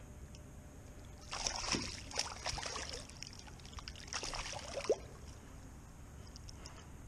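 Water splashing and sloshing at the side of a kayak while a freshly caught striped bass is handled, in two short bursts, one about a second and a half in and one about four seconds in.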